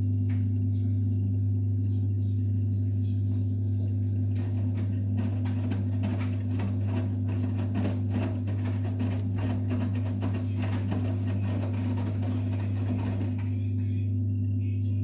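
Vestel CMI 97302 washing machine running on a 70 °C cotton programme: a steady low hum, with a spell of quick clattering and rattling through the middle.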